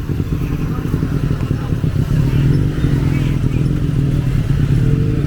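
A motor vehicle engine running close by: a steady low drone that grows a little louder about two seconds in.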